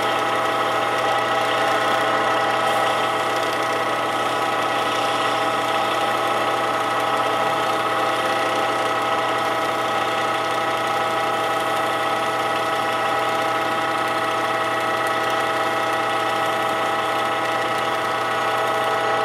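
Wood lathe motor running at a steady speed with a constant whine, spinning a pen blank while wax is buffed onto it with folded paper pressed against the turning wood.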